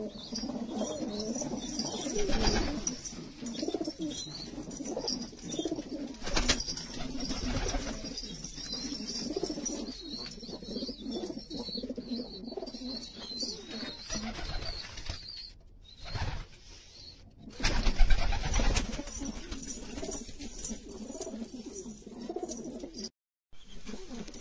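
A flock of domestic pigeons cooing together in a steady low murmur. A few sudden louder noises break through, the loudest about three-quarters of the way in.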